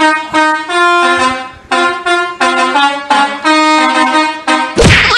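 Indonesian 'telolet' multi-tone bus horn playing a quick melody of short, stepping notes. Near the end a loud, harsh burst of noise with sliding tones cuts across it.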